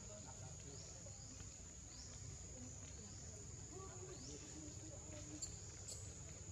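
Forest ambience: a steady high-pitched insect drone with faint short falling chirps repeating every second or so, and two faint clicks near the end.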